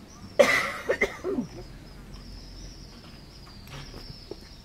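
A person coughs, a loud harsh burst about half a second in followed by a shorter second cough about a second in. A faint steady high tone runs under the quieter rest.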